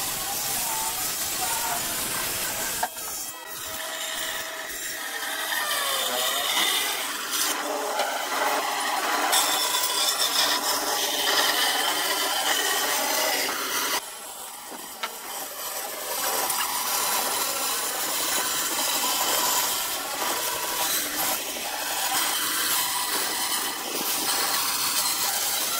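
An electric circular saw cutting a thick wooden slab for the first few seconds, then a band saw running and cutting a curve through a wide wooden board, a steady sawing noise with a break partway through.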